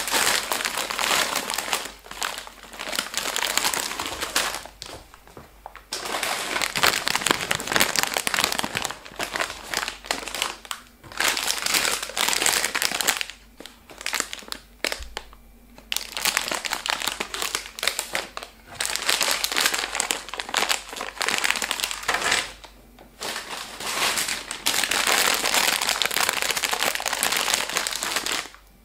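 Plastic and foil snack bags crinkling loudly as they are handled and set down on a table, in long stretches broken by a few short pauses.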